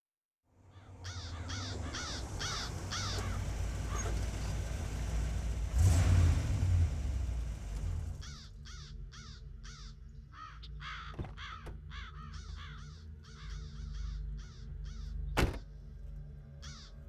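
Crows cawing in quick repeated series, about three calls a second, over a steady low rumble. A loud swell of noise comes about six seconds in, and a single sharp knock comes near the end.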